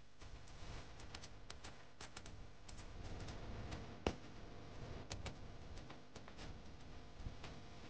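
Faint, scattered small clicks and drips as liquid is poured from a small brass pot over a stone idol, with one sharper knock of metal about four seconds in.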